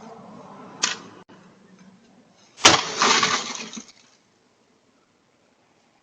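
Something breaking: a single sharp crack about a second in, then a loud crash about two and a half seconds in that rattles on for about a second and stops.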